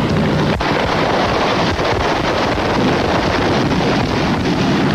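Fireworks display going off: loud, dense, steady crackling and hissing from a burning set piece, with one sharp crack about half a second in.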